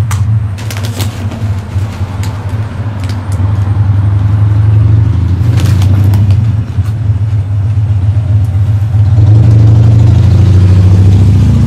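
Loud, steady low mechanical drone like a running engine, swelling about nine seconds in. Over it, crinkling of a foil chip bag being opened and handled in the first few seconds.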